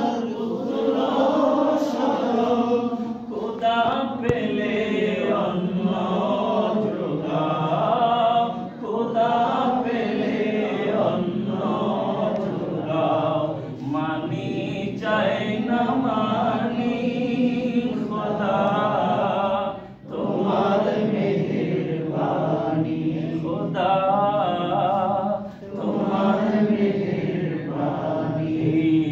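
Men's voices singing a Bengali Islamic devotional song (hamd/naat) without instruments, in long drawn-out chanted phrases with short breaks between them.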